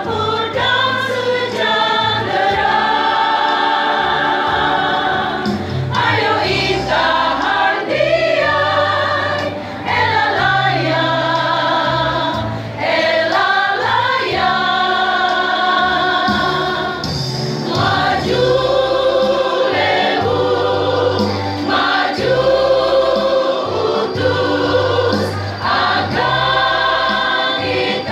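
Mixed choir of women and men singing a song in parts, with long held chords broken by short pauses between phrases.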